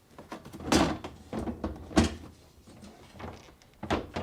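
Refrigerator freezer drawer being set down onto its drawer slides: a series of knocks and clunks, the loudest about one and two seconds in, with smaller knocks near the end.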